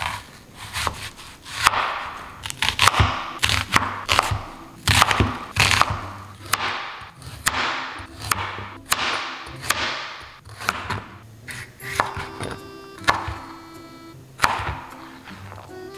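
Santoku knife cutting through onion and mini sweet peppers, each stroke crunching through the vegetable and knocking on the cutting board, about one cut a second.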